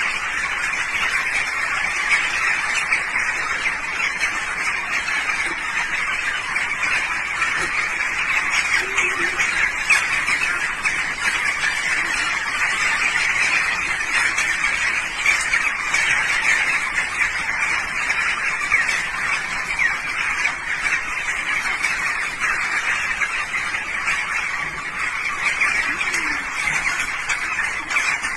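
A large flock of birds calling all at once, a dense, unbroken din of overlapping chirps and squawks.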